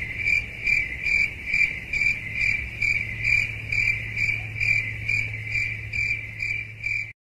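Cricket chirping sound effect, an even pulse a little over twice a second over a low hum, cutting off abruptly near the end. It is the comedy cue for an awkward silence after an unanswered question.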